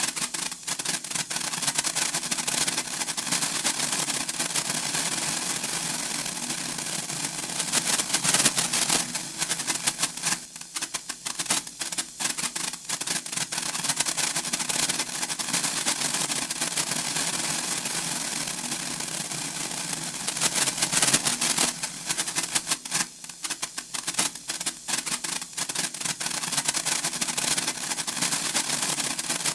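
Senko hanabi, a Japanese hand-held sparkler, crackling with a dense, rapid patter of tiny sparks, louder about 8 seconds in and again about 21 seconds in.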